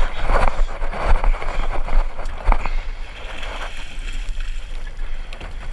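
Wind on the microphone and water splashing against the hull of a small open fishing boat under way, with a run of knocks and bumps in the first few seconds that then settle to a steadier wash.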